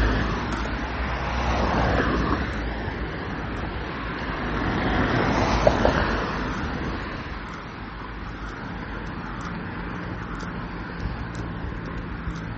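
Road traffic noise, a steady rumble that swells as vehicles pass about two seconds and six seconds in, then settles.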